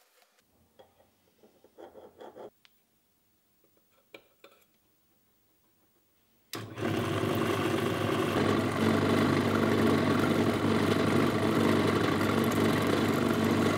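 A few faint taps and handling sounds, then a drill press starts up suddenly about six and a half seconds in and runs steadily as its bit drills into a stainless steel plate clamped in a vise.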